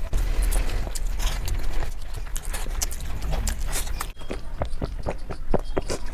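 Close-miked chewing with many quick, wet mouth clicks and lip smacks, a person eating a meal of rice and curry, the clicks coming faster in the second half.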